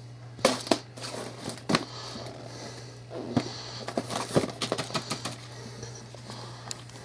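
Cardboard bulb boxes being handled and shifted against one another, giving irregular sharp taps and knocks with some rustling between, over a steady low hum.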